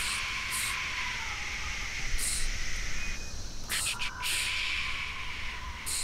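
People vocally imitating insects in chorus: a steady high hissing buzz with several short, sharp hisses on top.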